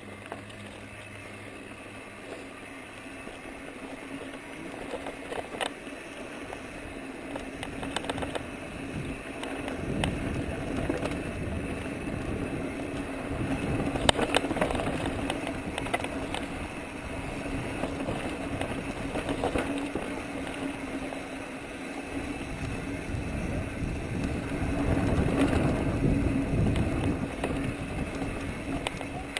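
Mountain bike rolling downhill on a dirt and gravel trail: a steady rush of tyre and wind noise that swells with speed, with clicks and rattles from the bike over rough ground.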